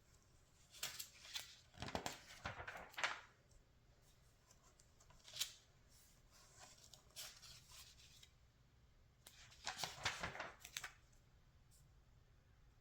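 Magazine pages being turned by hand, the paper rustling and flicking in short bursts: a cluster of page handling in the first few seconds, a single sharp flick about five seconds in, and another cluster about ten seconds in.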